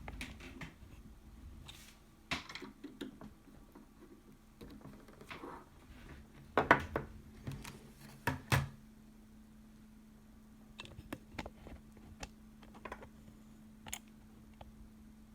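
Handling noise: scattered clicks, taps and knocks of small hard objects being moved about, with two louder knocks a little past halfway, over a faint steady hum.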